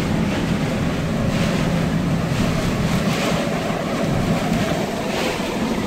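Storm-force wind buffeting a pickup truck, heard from inside the cab: a steady rush with gusts swelling about every two seconds. The wind is one the crew take for a tornado.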